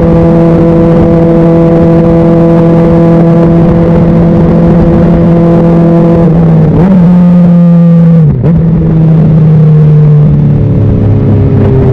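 Honda CBR600RR's inline-four engine running loud and steady while riding, then two brief dips in pitch about seven and eight seconds in, after which the note steps lower near the end.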